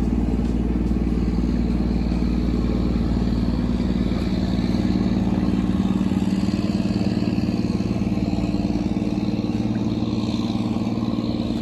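Fishing boat's engine running steadily under way, a continuous low drone.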